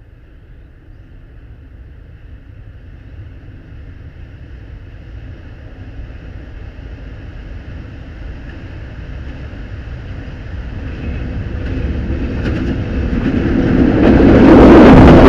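A train approaching on the track, its running noise growing steadily louder until it reaches the microphone near the end.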